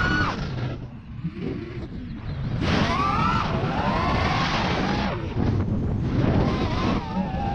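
FPV racing quadcopter's motors whining, the pitch rising and falling with the throttle. The whine drops away about a second in and comes back strongly near three seconds.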